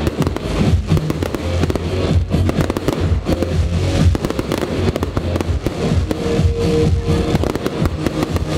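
Aerial fireworks bursting and crackling in rapid, continuous succession, over loud music with a steady bass.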